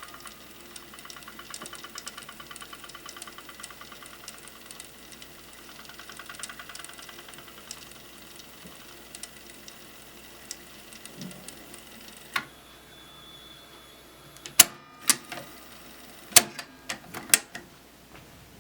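Pioneer CT-F750 cassette deck winding tape at speed, a steady mechanical whir with a fast flutter. It stops with a sharp click about twelve seconds in, then the deck's transport keys click several times near the end.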